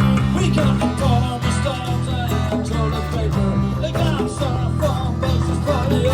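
Live band music: strummed acoustic guitar and bass, with a melody line above them that slides and bends in pitch.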